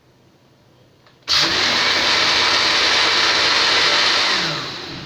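Electric countertop blender switched on about a second in, running at full speed as it purées strawberries with milk, cream and sugar. Near the end it is switched off and winds down, its pitch falling.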